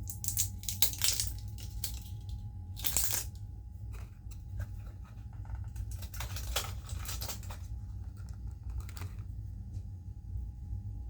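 Packaging of a pain relief balm being handled and torn open close to the microphone: crinkling and tearing in several short bouts, over a steady low hum.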